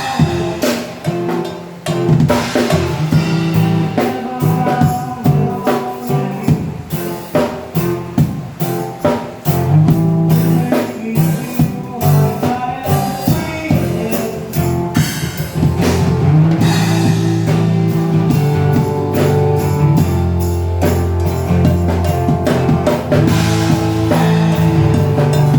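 A band playing through a sound system for a sound check: a drum kit keeps a steady beat over bass and guitar. The playing grows fuller and more sustained about two-thirds of the way through.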